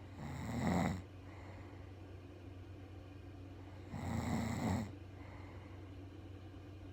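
A woman snoring in her sleep: two loud snores about four seconds apart, each just under a second long, over a steady low hum.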